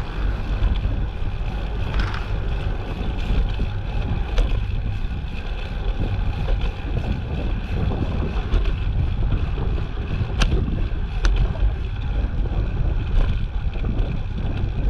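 Wind buffeting the microphone of a camera riding along on a moving bicycle, a steady low rumble, with a few sharp ticks, two of them close together about two-thirds of the way through.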